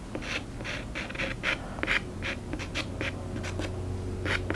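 Soft pastel stick scratching across textured pastel paper in short, quick strokes, about three a second, as grass blades are flicked in.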